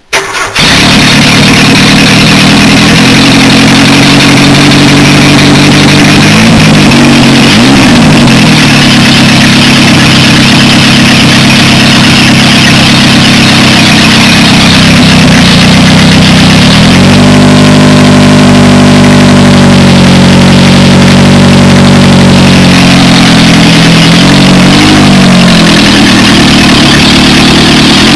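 Toyota 4A-C carburetted inline-four starting abruptly and running loud, with its revs rising and falling several times, including a longer higher-rev stretch about two-thirds of the way through.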